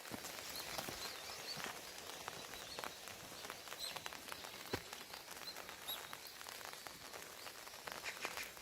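Footsteps outdoors, a run of faint crackling clicks, with short high bird chirps now and then.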